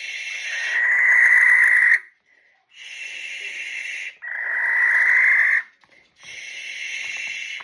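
Barn owl screeching: three long, harsh, hissing calls of about two to three seconds each. Each begins as a softer hiss and swells into a louder rasp.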